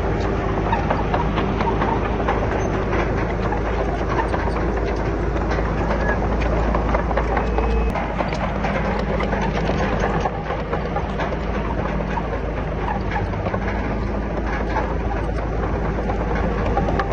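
A Komatsu D31PX crawler bulldozer's diesel engine runs steadily under the dense clanking and rattling of its steel tracks and blade working rock and soil. The engine's low hum eases slightly about eight seconds in.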